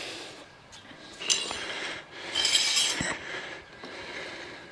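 Light metallic clinks of hand tools being handled, twice, the second a short jangling rattle, with a soft knock just after.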